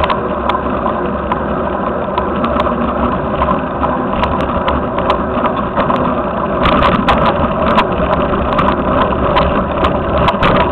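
Wind and road noise on a handlebar-mounted action camera's microphone while riding, with frequent sharp rattles and knocks from bumps, growing busier a little past halfway.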